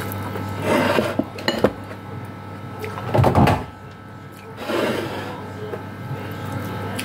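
Eating and plate-handling sounds: fingers tearing fried fish on a plate, chewing, and a few clicks and knocks against the plate, in bursts about a second, three seconds and five seconds in, over a steady low hum.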